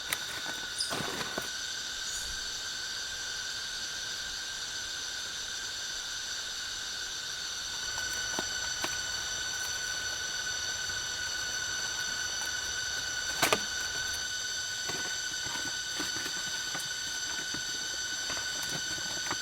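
Steady high-pitched insect chorus, several shrill tones held at once, growing a little louder partway through. Scattered clicks and knocks sound over it, the loudest about thirteen seconds in.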